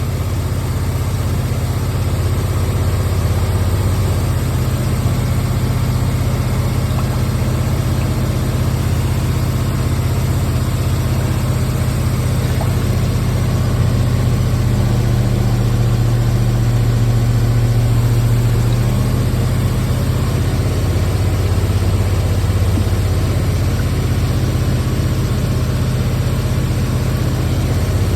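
Hemi engine idling steadily, left running with the heater on to bleed air out of a freshly refilled cooling system.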